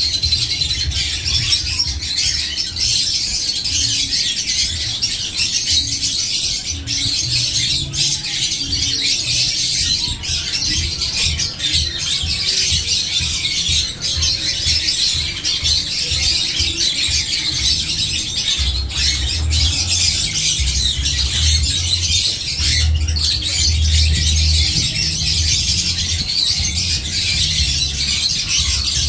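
Dense, unbroken chattering and harsh squawking of birds, with uneven low bumps, loudest in the second half.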